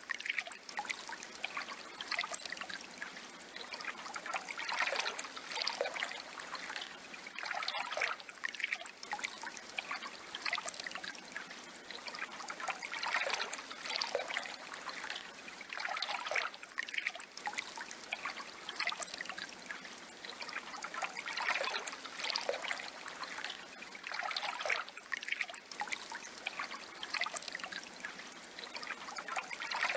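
Water trickling continuously, swelling and easing irregularly every few seconds.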